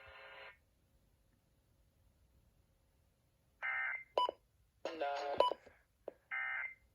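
Emergency Alert System digital data bursts from a broadcast alert: three short buzzy bursts of tones a little over a second apart, with brief beeps and clicks among them, marking the end of the spoken tornado-warning message. A steady buzzy tone cuts off about half a second in, before a pause of near quiet.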